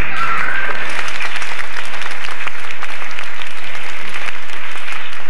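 Audience applauding, breaking out suddenly with many overlapping claps and holding steady.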